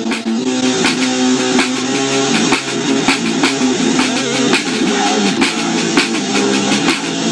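Loud music with guitar and a drum kit keeping a steady beat.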